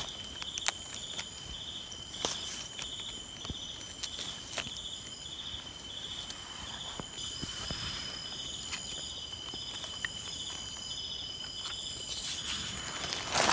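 Insects calling steadily: one high continuous trill overlaid by a pulsed chirp that repeats about twice a second. Occasional short clicks and rustles come from hands working in the dry leaf litter.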